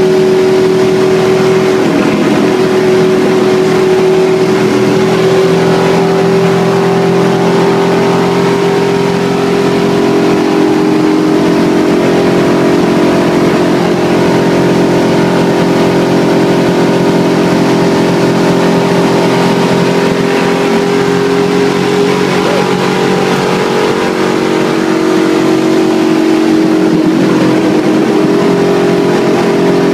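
NASCAR stock car's V8 engine running hard at high, steady revs, heard loud from inside the car, with a slight dip in pitch a few seconds before the end.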